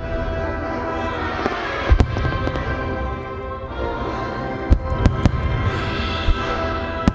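Aerial firework shells bursting with sharp bangs over continuous music: two bangs close together about two seconds in, then a run of several more in the second half.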